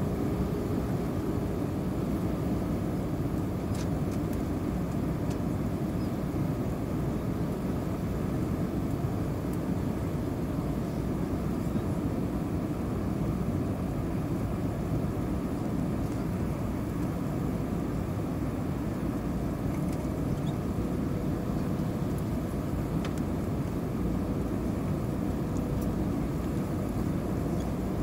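Cabin noise of an Airbus A320-232 on approach descent: a steady rumble of airflow and its IAE V2500 turbofan engines, with a faint steady hum.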